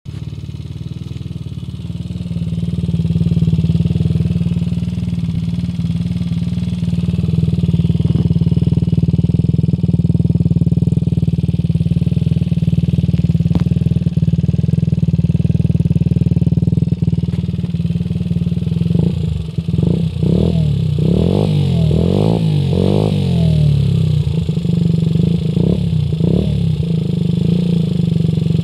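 Baotian Speedy 50cc scooter engine running through an aftermarket performance exhaust, heard right at the muffler: a steady idle that comes up a little after about two seconds. About two-thirds of the way through, the throttle starts being blipped repeatedly, the revs rising and falling several times.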